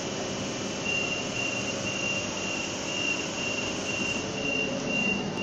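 A Sydney Trains double-deck electric train standing at the platform with a steady hum. From about a second in, a high electronic beep repeats about twice a second, the train's door warning beeper.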